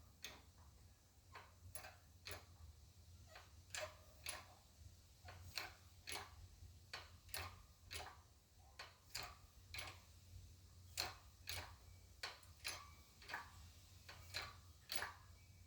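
Faint, sharp clicks, about two a second, from a 12-ton hydraulic shop press being worked as it slowly pushes a wheel hub into a new wheel bearing in a steering knuckle.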